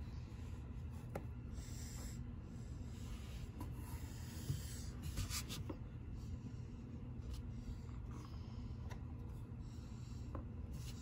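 Cardboard jigsaw puzzle pieces sliding, rubbing and pressed into place on a tabletop, with faint scratchy rustles and a few light taps over a steady low room hum.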